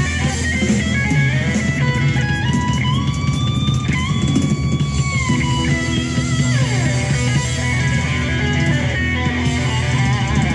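Blues-rock recording with a lead electric guitar solo over bass guitar. The guitar plays long, held notes that step up in pitch, then one note slides down a little past the middle.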